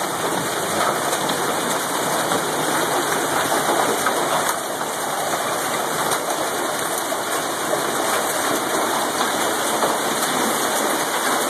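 Hail and heavy rain pelting down: a dense, steady clatter of countless hailstone impacts.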